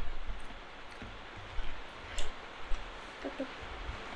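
Eating with the hands: fingers mixing and squishing chicken biryani rice on plates, with a few soft clicks and mouth smacks over a steady hiss.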